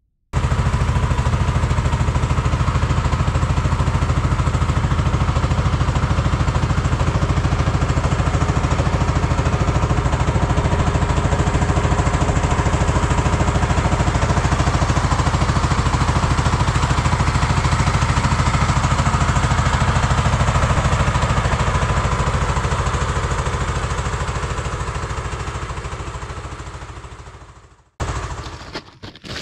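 Wooden river boat's motor running steadily, heard from aboard, fading out near the end.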